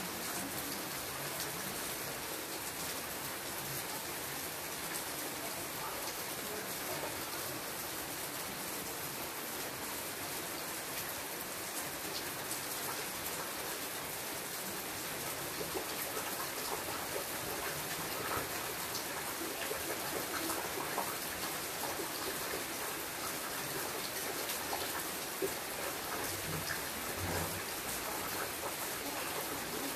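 Steady rain: an even hiss dotted with many single drop ticks.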